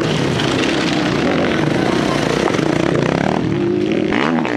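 Enduro dirt-bike engines revving hard, the pitch climbing and dropping repeatedly, with one sharp rev that rises and falls near the end.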